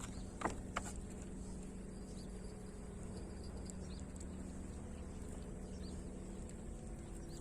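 Steady low motor hum, with two sharp knocks close together about half a second in and scattered faint high chirps over it.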